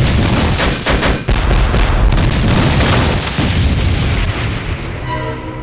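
Artillery shells exploding in a rapid barrage: several sharp blasts close together in the first second, then a continuous rumble of explosions that slowly fades. Music comes in near the end.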